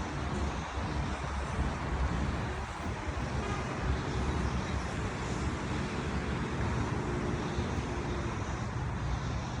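Steady road traffic noise: a continuous low rumble of vehicle engines and tyres.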